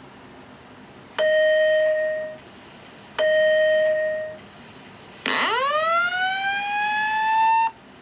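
Fire alarm voice-evacuation speaker sounding two separate steady electronic tones, each held under a second and then fading. These are followed by one rising whoop tone that sweeps up quickly, levels off, and cuts off after about two and a half seconds. This is the alert signal that comes before an evacuation message.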